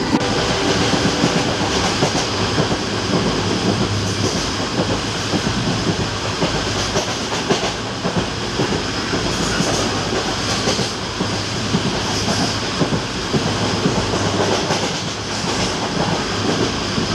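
Passenger train coach running along the track, heard from inside: a steady rumble and rattle with many small clicks from the wheels on the rails.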